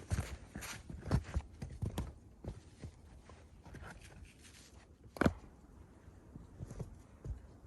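Irregular crunching and knocking as stones are shifted and set in place, with footsteps in snow and one sharp stone-on-stone knock about five seconds in.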